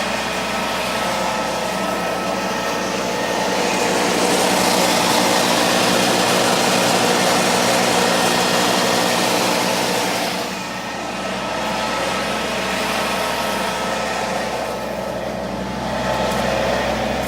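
Frontier WC1103 PTO wood chipper running behind a John Deere 2032R compact tractor, its three-cylinder diesel engine holding a steady speed. The sound grows louder and noisier between about four and ten seconds in, dips briefly, then rises again near the end.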